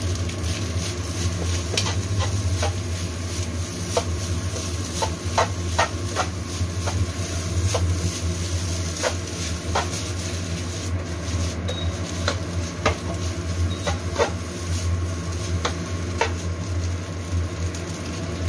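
Metal spoon scraping and clicking against a wok as fried rice is stirred and tossed, in irregular knocks, over the steady low hum of an induction cooktop.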